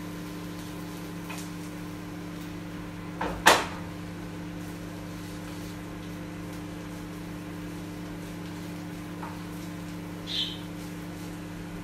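Microwave oven running with a steady hum. A single loud knock comes about three and a half seconds in, and a brief higher-pitched sound near the end.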